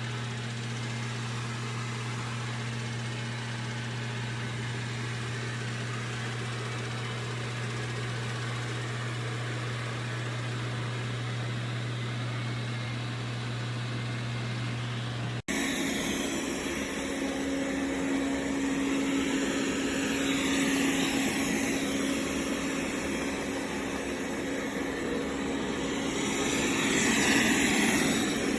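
Dreame L10s Ultra robot vacuum running, a steady low motor hum. After a cut about halfway through, a higher motor tone with a hiss takes over and swells twice.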